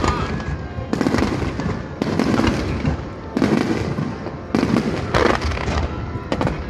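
Aerial firework shells bursting in quick succession, a loud boom about once a second, with rising shells launching between the bursts.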